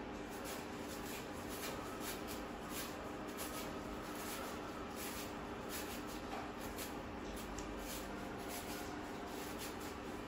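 Sweet potato being shredded into strands by hand over a bowl: a run of quick, uneven rasping strokes, with a steady low hum underneath.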